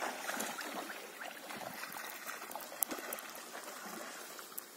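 Water sloshing and trickling around horses' legs as they wade through a shallow river, with one sharp tap about three seconds in.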